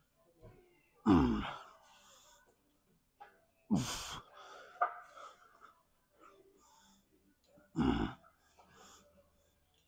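A man grunting with effort through the reps of a weightlifting drop set: three loud, breathy grunts a few seconds apart, each falling in pitch, with quieter breathing between.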